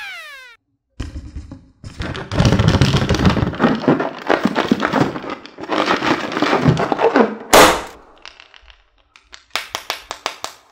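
Hands squeezing and kneading a soft rubbery squishy toy, a dense rubbery squelching and crinkling that lasts several seconds. It ends in a single sharp burst, and near the end comes a quick run of about eight light clicks.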